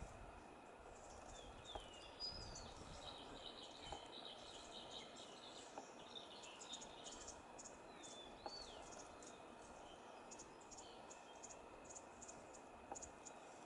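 Faint ambience: a short swooping bird whistle about two seconds in and another about eight seconds in, over a thin, rapid chatter of high ticks like insects.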